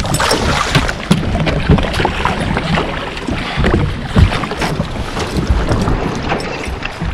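Wind rumbling on the microphone over splashing water as a hooked musky thrashes at the surface.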